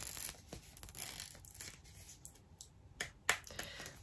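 Hands handling a plastic energy-drink powder tub: faint scraping and rustling, with a couple of sharp clicks about three seconds in.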